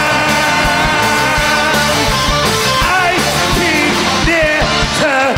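Live band music between sung lines: a held melody note for about two seconds, then instrumental fills with sliding, bending notes over a steady beat.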